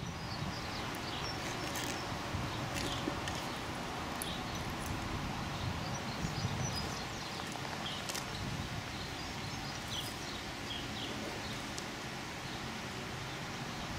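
Outdoor ambience: a steady rush of wind and rustling leaves, with scattered short, high bird chirps.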